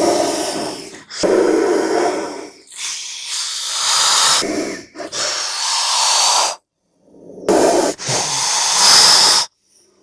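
Cobra hissing: a series of loud, breathy hisses, each about a second long, separated by short gaps.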